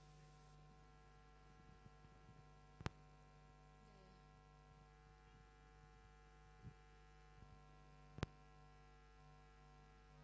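Near silence: a faint steady electrical hum, with two brief faint clicks, one about three seconds in and one about eight seconds in.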